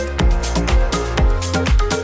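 Electronic dance-pop background music with a steady four-on-the-floor beat, in an instrumental stretch between sung lines.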